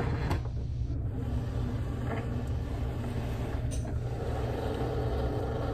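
Cricut cutting machine's motor whirring steadily as its rollers draw the cutting mat in to measure it, with a couple of faint clicks.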